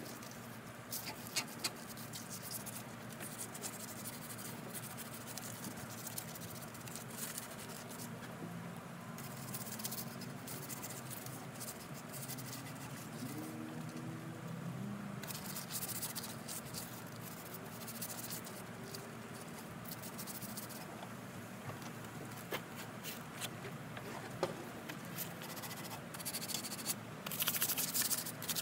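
A sanding block rubbed by hand over the wooden spindles and back of a rocking chair: scratchy strokes that come in spells, with pauses between, over a steady low hum.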